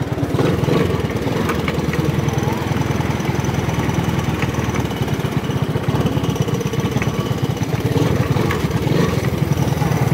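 Engine of a Honda Big Red ATV running steadily under the rider as it rolls along, with a fast, even exhaust pulse.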